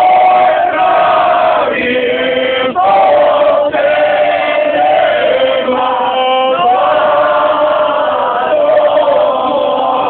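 A group of voices singing together, holding long notes that step to a new pitch every few seconds, with brief pauses for breath.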